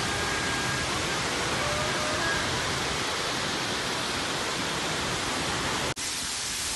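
Steady rushing of water cascading down the terraced concrete steps of a large outdoor fountain. It breaks off for an instant near the end, and a similar steady hiss of spray jets follows.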